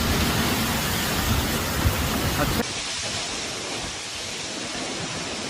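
Heavy thunderstorm rain and wind: a steady, loud rush that drops abruptly to a softer rush at a cut about two and a half seconds in.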